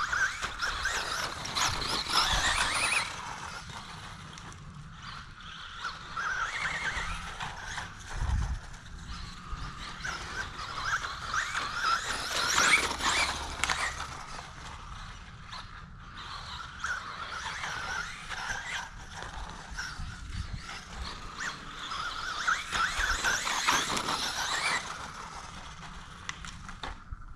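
Traxxas Bandito RC buggy's brushless motor whining as the throttle is worked. It rises and falls in about five bursts a few seconds apart.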